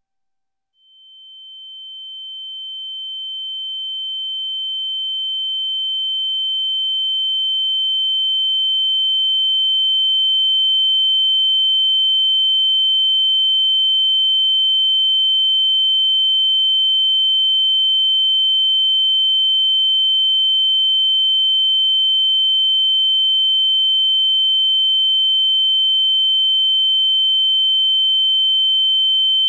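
Electronic ear-ringing sound effect: a single steady high-pitched tone that fades in from silence about a second in, swells slowly over the first ten seconds or so, then holds level without a break.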